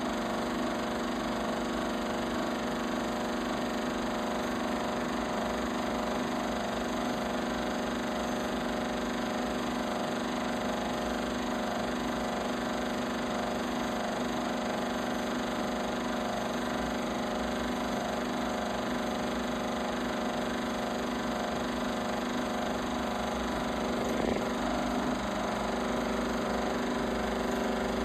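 Film projector running steadily: a constant mechanical hum from its motor and film transport, with no soundtrack.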